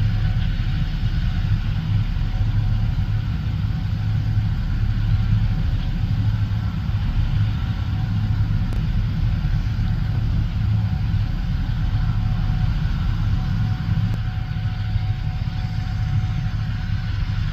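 Gleaner S77 combine harvester running steadily while harvesting corn: a constant low engine drone with a faint steady whine above it.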